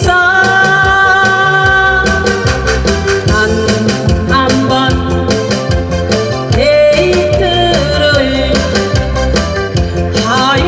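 A woman singing a Korean trot song into a handheld microphone over a musical accompaniment with a steady beat. She holds long notes near the start and again past the middle.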